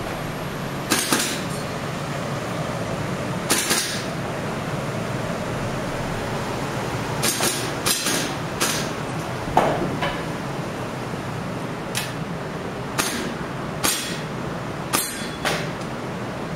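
Rifle shots fired at irregular intervals, about a dozen sharp reports, some in quick pairs, each with a short echo, over steady background noise.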